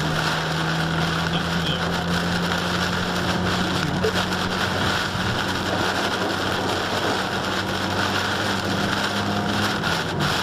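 Rain beating on a car driving on a wet highway in a storm, heard from inside the cabin as a steady hiss over a constant low hum of engine and tyres.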